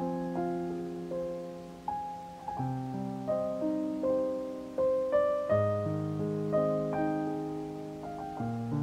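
Background piano music, slow and gentle, with single notes and chords struck about every half second and left to fade.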